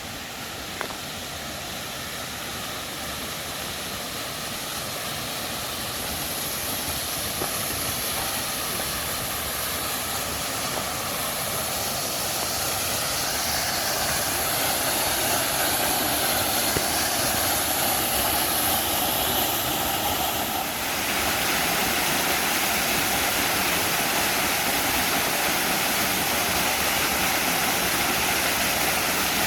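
Creek water rushing in an even, steady noise, growing gradually louder over the first two-thirds and then holding level.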